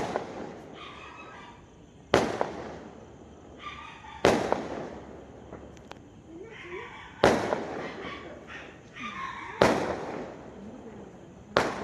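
Fireworks going off: six sharp bangs about two to three seconds apart, each trailing off in a fading echo.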